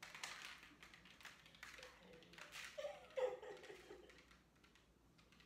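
Breathy, mostly unvoiced laughter in short gusts, peaking in a brief high squeal or laugh about three seconds in.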